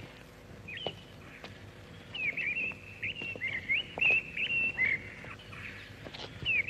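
Birds chirping: short, quick chirps, a few at first, then a dense run in the middle, with a few faint clicks between.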